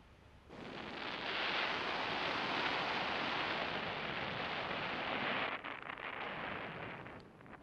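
Wind rushing over the camera microphone of a paramotor pilot gliding low to land. It builds about half a second in, holds steady, and falls away about five and a half seconds in, with a few light knocks near the end.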